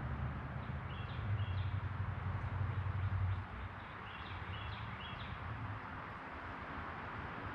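A bird chirping in two short runs of quick high notes, one about a second in and one about four seconds in, over a low rumble that eases off about three seconds in.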